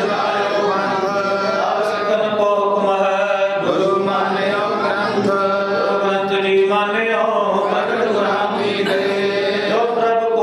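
A congregation chanting together in a slow devotional chant, many voices holding long notes over a steady low hum.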